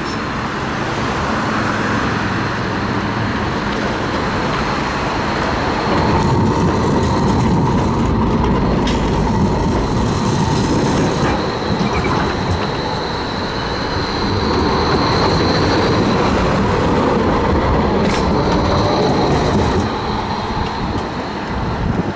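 Bombardier Flexity M8D-NF2 electric tram passing close by, its wheels running on the rails with a high steady whine. It gets louder about six seconds in and stays loud until near the end.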